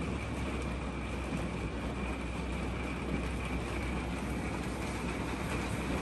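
Heavy rain pouring steadily on a travel trailer, heard from inside: an even hiss over a low, steady hum.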